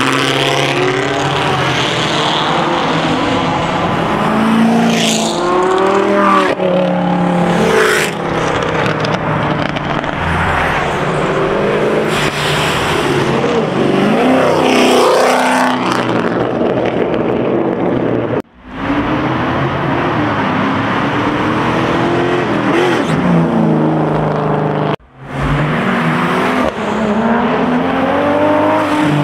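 Car engines revving hard and passing by, their pitch rising and falling again and again over tyre and road noise. The sound drops out suddenly and briefly twice in the later part.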